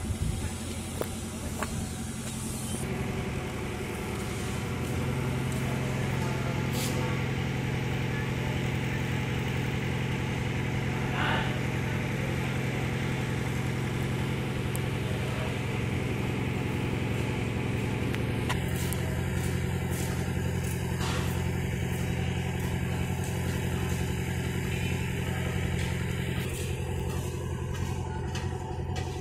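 A steady low engine hum, shifting in tone a few times, with a few faint clicks.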